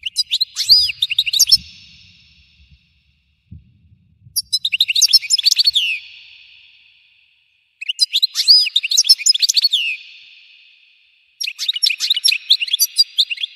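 European goldfinch singing: four bursts of rapid twittering and chirping notes, each phrase a second or two long and trailing off in an echo. This is the intense full song the title calls the goldfinch's 'explosion'.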